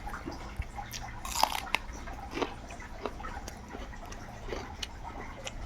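A person eating close to the microphone: chewing and biting, with many small wet mouth clicks and a few louder crunches in the first half, over a steady low hum.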